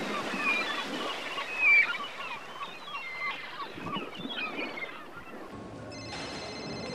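Birds calling over one another, a dense run of short squawking calls that fade out about five seconds in. Near the end a phone begins to ring with a steady electronic ring tone.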